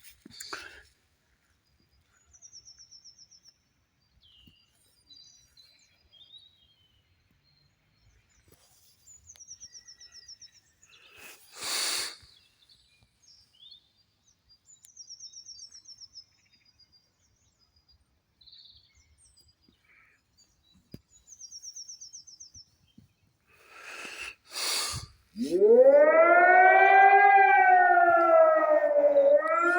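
A bird's short, high trill repeats every few seconds over a quiet background, with a few brief rushes of noise. About 25 seconds in, a civil defence siren starts up: its pitch climbs from low into a loud wail, sinks, then begins to rise again.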